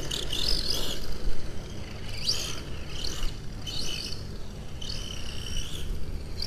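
RC buggy's 21-turn brushed motor and gear drive whining in short bursts that rise and fall in pitch as the throttle is blipped. Near the end the whine holds steady for about a second.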